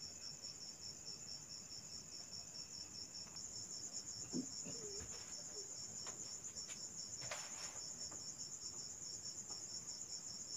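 Insects trilling steadily in a high, evenly pulsing tone, with a few faint knocks about halfway through.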